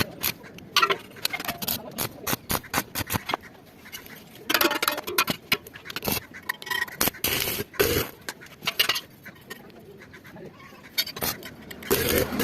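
Irregular sharp clicks and knocks, with a few short scraping bursts in between.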